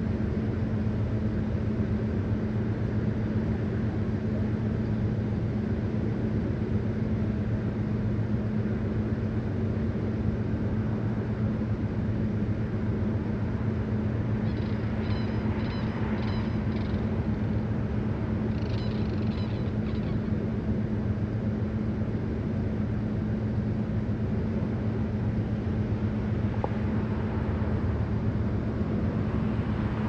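Steady low hum of an idling vehicle engine. About halfway through, two short series of faint, pulsed calls from the sandhill cranes.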